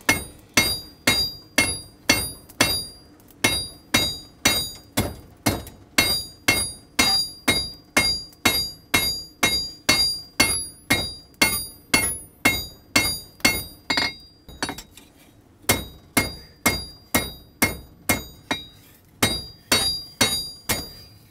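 Blacksmith's hammer striking red-hot steel bar on an anvil, a steady rhythm of about two blows a second, each with a high metallic ring. The blows stop briefly about two-thirds of the way through, then resume.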